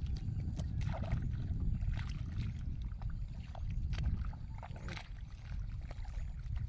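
Shallow muddy water sloshing, with scattered small splashes and clicks from hands working in a rice-field puddle to catch fish, over a steady low rumble.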